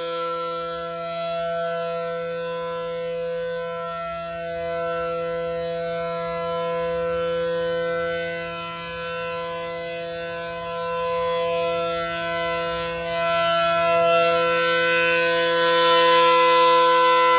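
Late-1970s ACA Allertor 125 rotating outdoor warning siren sounding its steady alert tone, a two-note chord from its 9/12-port rotor. The pitch holds steady while the loudness swells and fades as the rotating head sweeps round, loudest near the end.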